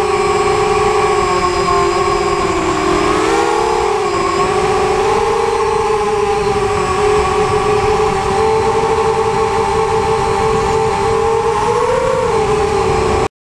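Electric motors and propellers of an FPV racing quadcopter whining steadily in flight, heard from its onboard camera. The pitch dips for a moment about three to four seconds in and rises briefly near the end. The sound cuts off suddenly just before the end.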